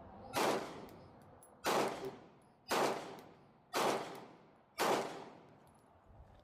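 Five 9mm pistol shots from a SIG Sauer P365 Fuse, fired at a steady pace about a second apart, each crack followed by a short ringing decay.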